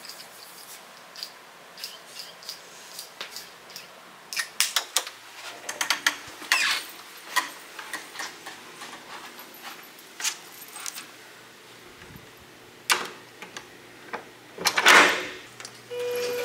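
Irregular clicks and clatter of small hard objects being handled, sparse at first and busiest in the middle, with a louder, longer clunk near the end.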